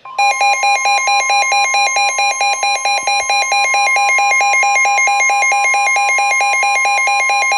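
Weather radio warning alarm: a steady, loud tone near 1 kHz (the NOAA Weather Radio 1050 Hz warning alarm tone) sounding together with a rapidly pulsing electronic alert beep, about four beeps a second. The beeping stops near the end while the steady tone carries on; it announces a severe thunderstorm warning.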